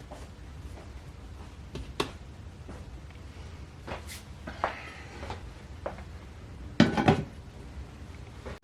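Dishes and cutlery being handled: scattered light clinks and knocks, with a louder clatter of several quick hits about seven seconds in.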